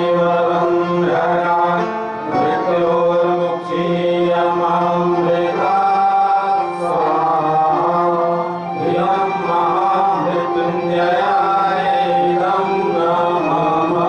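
Music: a chant-like sung melody over a steady low drone.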